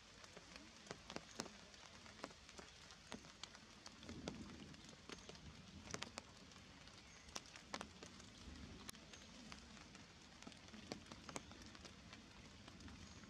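Faint, irregular ticks of water dripping onto leaves after rain, a few a second, over a soft hiss.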